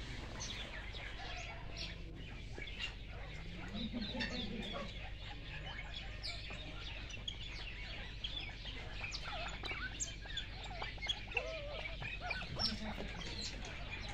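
Many small birds chirping and twittering continuously, with a few lower calls from larger birds about four seconds in, around eleven seconds and near the end.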